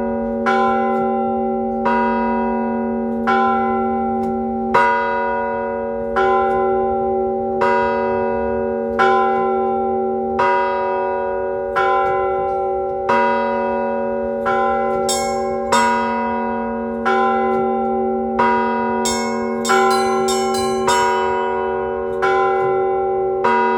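Cathedral bells rung as an ensemble. A bell strikes about every second and a half over lower bells that keep sounding. Smaller, higher bells come in with quick strikes through the last few seconds.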